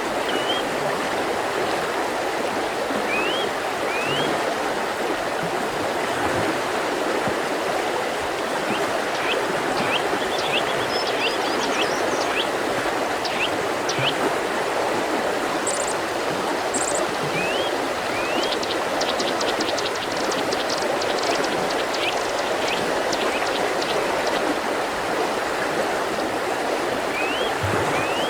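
Mountain river flowing in a steady rush, with songbirds calling over it. Short rising whistles come every few seconds, and a fast rattling trill runs from about two-thirds of the way in.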